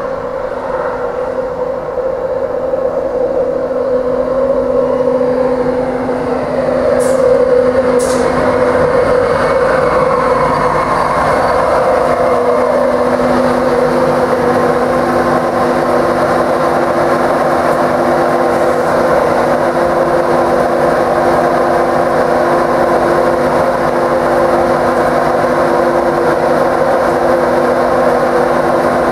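Class 91 electric locomotive at the head of an InterCity 225 train slowing as it runs in, its motor whine falling in pitch as it comes to a stand, with two short clicks partway through. It then stands with a steady electrical hum.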